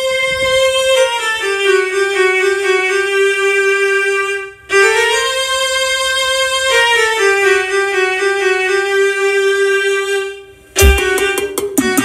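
Music from the pickup's car sound system: a violin-like melody of long held notes, with the phrase repeated after a short break. A drum beat comes in near the end.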